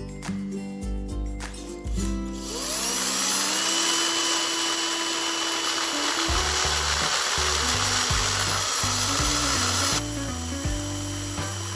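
A power tool motor spins up with a rising whine about two and a half seconds in, then runs steadily with a broad hiss, over background music.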